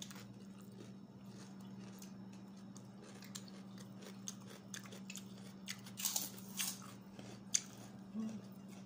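Eating close to the microphone: chewing and biting crunchy food, with a run of louder crunches after about six seconds and one sharp crunch soon after, over a steady low hum.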